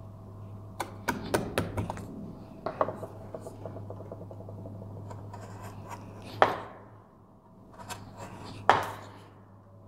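Hand carving chisel cutting into a wooden molding: a run of short clicks and scraping cuts, with two louder sharp snaps in the second half as the blade breaks through. A low steady hum runs underneath.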